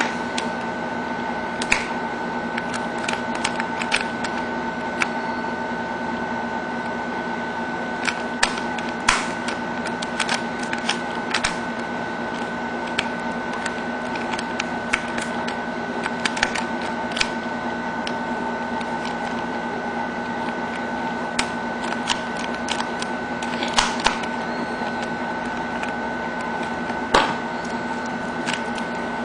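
Plastic 2x2 and 3x3 puzzle cubes turned fast by hand: irregular sharp clicks and clacks as the layers snap round, a louder clack near the end, over a steady hum.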